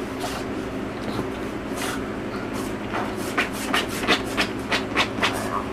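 Small dog rolling and wriggling on its bed and a towel, making a run of quick rustling scrapes. The scrapes come about three a second in the second half, over a steady low hum.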